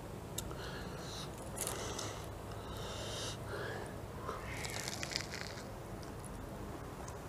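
Faint crunching and chewing of a deep-fried crispy bread roll, in scattered patches with a few small crackles, along with breathing through the nose.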